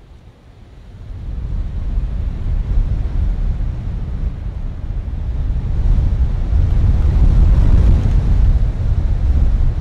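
Wind gusting against the nest camera's microphone: a low rumble that builds about a second in, is loudest near the end, then eases.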